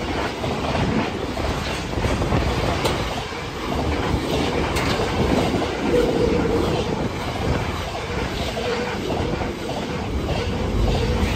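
Freight train wagons rolling past, their wheels clattering over the rails in a steady clickety-clack.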